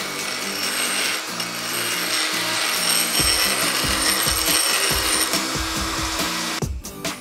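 Cordless die grinder with a bit grinding the inner edge of a metal ring, a steady high grinding whine that stops near the end. Background music with a beat comes in about three seconds in.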